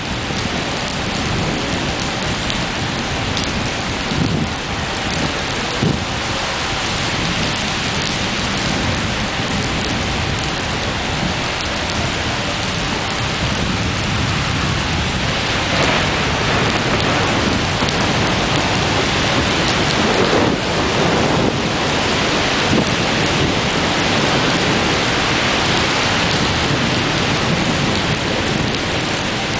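Steady rain of a thunderstorm pouring down, with rumbles of thunder. The rain grows a little louder from about halfway through.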